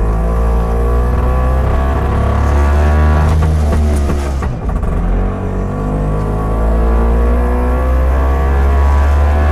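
Bond Mini Car's Villiers two-stroke engine, very loud from inside the cabin, pulling hard with its pitch climbing under acceleration. The pitch drops briefly about halfway through at a gear change, then climbs again.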